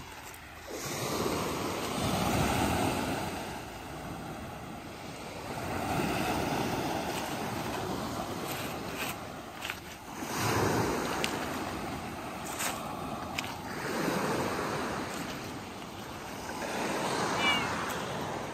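Small waves breaking and washing on a pebble beach, each one swelling and fading every few seconds.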